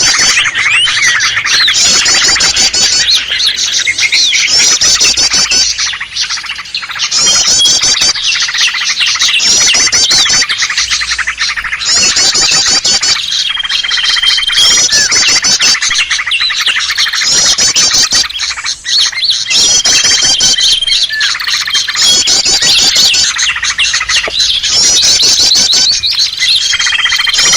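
Dense, loud chorus of many small songbirds calling at once, a bird-lure recording that mixes species such as prinias and bulbuls. Fast high trills recur every few seconds over the crowd of chirps, with a few short held whistles.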